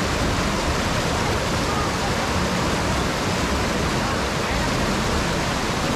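Shallow whitewater river rushing over boulders: a steady, loud, unbroken rush of water.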